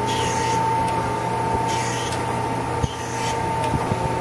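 Acer AGS1224 AHD automatic hydraulic surface grinder running: a steady whine over a low hum, with a soft hiss that comes back about every second and a half.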